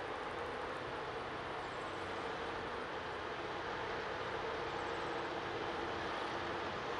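Two X class diesel-electric locomotives powering up a grade with a heavy freight train, heard from a distance as a steady engine drone that grows slightly louder as they approach.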